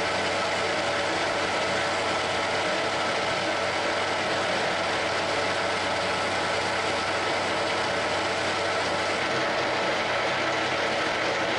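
Geared-head metal lathe running at a steady speed, its motor and headstock gears giving a constant mechanical whirr.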